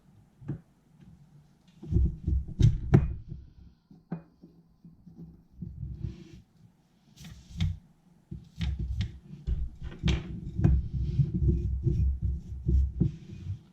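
Irregular low thumps and sharp clicks of tools and parts being handled at a soldering bench, denser from about two seconds in and again from about eight seconds.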